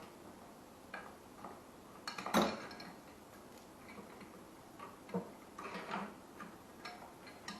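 Scattered light metallic clinks and knocks of motorcycle parts being handled while a swing arm is worked into the frame, the loudest knock about two seconds in.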